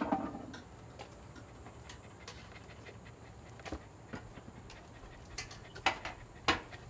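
A dog panting, with scattered sharp clicks and taps, the loudest two near the end.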